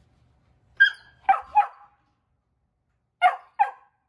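Mini labradoodle puppy barking at the door to be let in: five short barks in two bursts, three in quick succession about a second in, then two more near the end.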